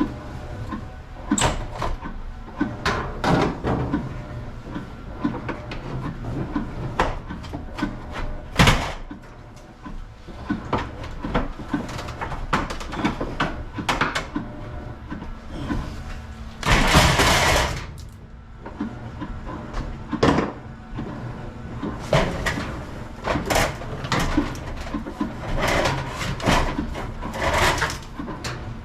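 Irregular knocks, clicks and rattles of hands-on work with wiring and fixtures, with a longer rushing burst lasting about a second midway through.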